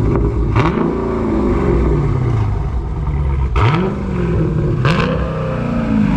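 Dodge Daytona 392's 6.4-litre HEMI V8, exhaust opened up by a mid-muffler delete, blipped from idle: the note rises and falls back about three times, with a few sharp cracks among the revs.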